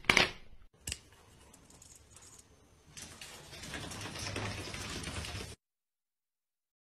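A plastic laundry hamper lid claps shut with one sharp hit, followed by a small click just before a second in. Later comes a couple of seconds of scuffling and rustling as a cat tussles on a tiled floor, which cuts off suddenly.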